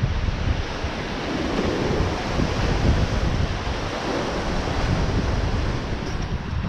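Surf breaking and washing through shallow water over sand, with wind buffeting the microphone in uneven low gusts.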